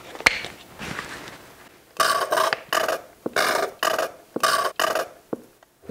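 Plastic squeeze bottle of ketchup sputtering and squirting as it is squeezed: about five short, wet, farting spurts of air and sauce in quick succession, after a click near the start.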